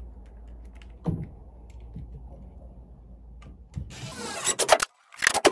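Cordless drill-driver driving a screw through the back of a metal junction box into a wooden joist. The motor runs in two short spurts, about four seconds in and again just after five.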